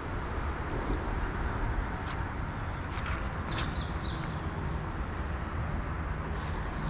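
A songbird sings a short run of high-pitched chirps about three seconds in, over a steady background rush.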